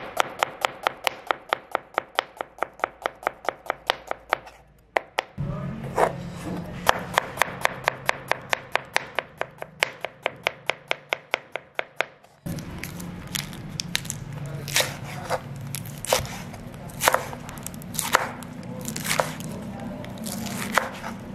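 Chef's knife chopping on a cutting board. Quick, even strokes about five a second slice through onion, then potato. From about two-thirds of the way in, slower, uneven chops cut through spinach leaves.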